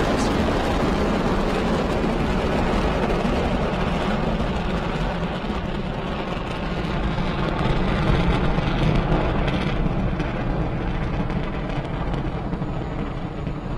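Falcon 9 first stage's nine Merlin 1D rocket engines firing during ascent: a steady, dense noise with most of its weight low down. Its highest sounds thin out after about five seconds as the rocket climbs away.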